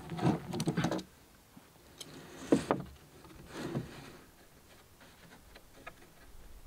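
Clattering and scraping of building timber being handled and knocked into place, in three short bursts with one sharp knock about two and a half seconds in.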